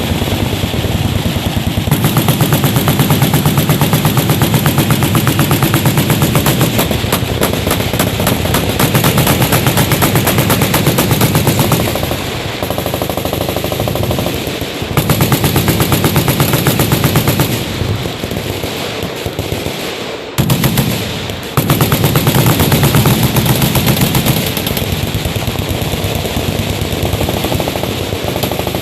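Several machine guns firing automatic at once, long overlapping bursts of rapid shots that swell and ease, with a brief lull about two-thirds of the way through.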